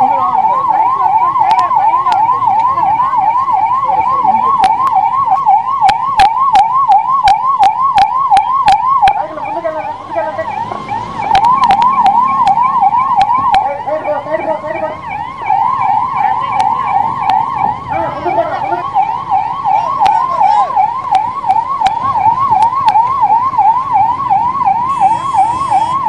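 Ambulance siren on a fast electronic yelp, a rising sweep repeating about three times a second, with a run of sharp clicks over the first nine seconds or so.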